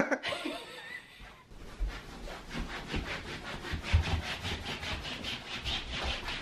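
Socks shuffling and sliding on a hardwood floor, a quick steady rasping of about four strokes a second with soft, uneven footfalls thudding underneath.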